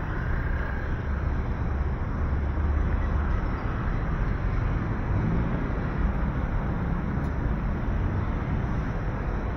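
Steady city street noise with a low traffic rumble, and a vehicle engine hum faintly audible about halfway through.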